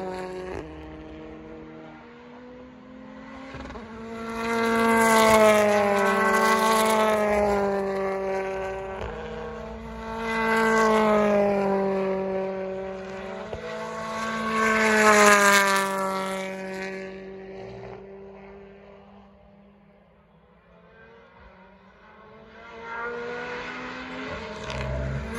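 BTCC touring cars' turbocharged four-cylinder engines accelerating through a sweeping bend one after another. Each passing car brings a swell in the engine note, its pitch rising and falling with throttle and gear changes, about four times, with a short lull between the third and the last.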